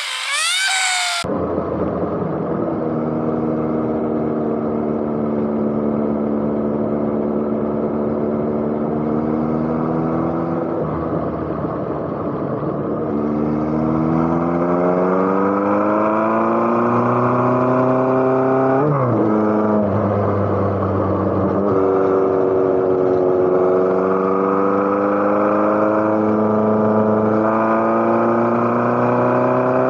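Motorcycle engine running under way, its pitch climbing steadily as it accelerates, with a quick drop and recovery in pitch partway through before it climbs again. In the first second, a high rising whine cuts off abruptly.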